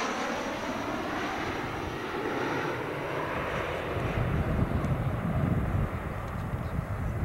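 Jet engine roar from a formation of four jet aircraft flying away after a pass. The roar dulls and fades, and an uneven low rumble takes over from about halfway through.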